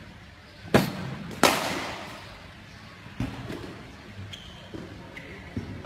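Cricket bat and ball in an indoor practice net: two loud, sharp cracks about 0.7 s apart, the second ringing out briefly, then a softer knock about three seconds in and another faint one near the end.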